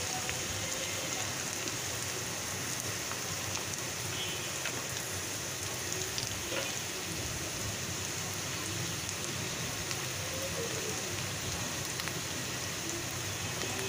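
Sliced onions and green chillies sizzling steadily in hot oil in a black iron karahi, with a few light scrapes of a steel spatula stirring them. The onions are being fried down toward crisp, browned beresta.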